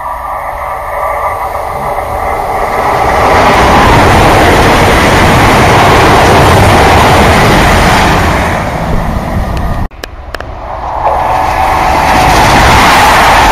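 A CrossCountry Class 220/221 Voyager diesel multiple unit pair running through the station. A steady rush of engine, wheel and rail noise builds over about four seconds, stays loud, then fades. After a sudden cut, a CrossCountry HST with a Class 43 diesel power car approaches, and its noise builds back up to full loudness.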